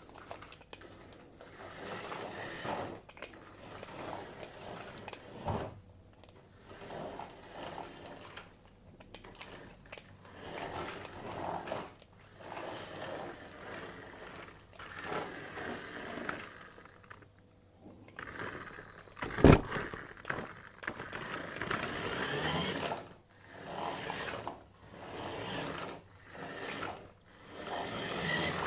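Toy Grave Digger RC monster truck's electric drive motor whirring in repeated short bursts as it is driven forward and back, with one sharp knock about two-thirds of the way through.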